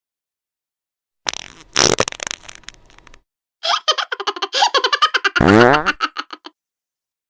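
Fart sound effects. A short fart comes about a second and a half in. After a brief gap a longer, rapidly sputtering fart follows, with a pitched tone that rises near its end.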